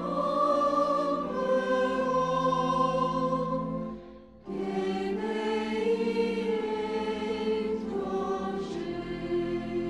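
Highland bagpipes of a pipe band playing a tune over their steady drones. The playing breaks off briefly about four seconds in, then resumes.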